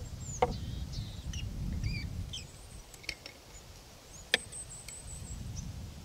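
Sharp knocks of a plastic mug lid and a metal bottle cap being handled and set down on a wooden table, the loudest a little past four seconds in. Small birds chirp in short high notes throughout.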